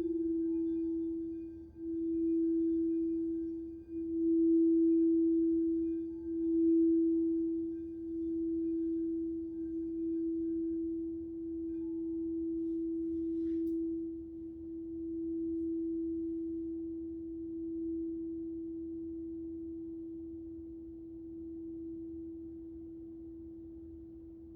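Crystal singing bowl sounding one sustained pure tone, swelling and dipping every couple of seconds as it is played, then slowly fading. A faint click a little past halfway.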